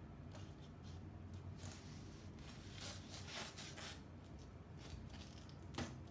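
Faint rustling and scraping of paper shadow puppets and their sticks being handled behind a paper screen, with a sharp tap near the end.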